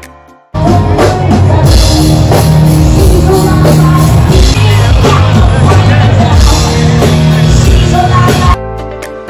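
Live rock band with drums, electric guitar and a singer, playing loud through a stage PA. It starts suddenly about half a second in and cuts off near the end, where soft keyboard background music comes back.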